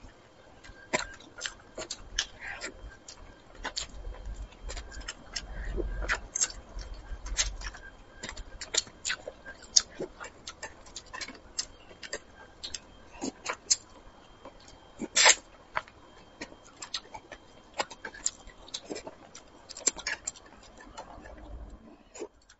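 Close-miked eating sounds of braised fish: irregular wet mouth clicks and lip smacks while chewing, with chopsticks picking at the fish bones. A low rumble runs for a few seconds, from about four to eight seconds in.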